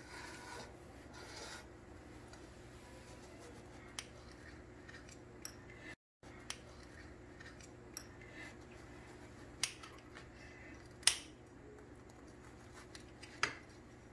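Kitchen knife slicing through a crusty baked bread roll on a ceramic plate: scattered sharp clicks and crunches as the blade cuts and taps the plate, the loudest about eleven seconds in.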